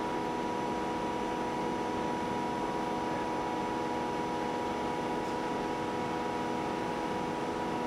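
Onitex L100 wrap-around labeling machine running: a steady hum of several held tones over a constant whirr.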